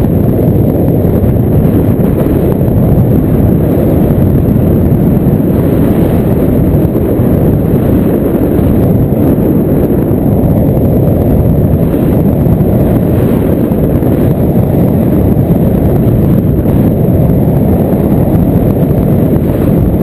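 Loud, steady wind buffeting the microphone: the rush of air past a camera carried in flight under a paraglider.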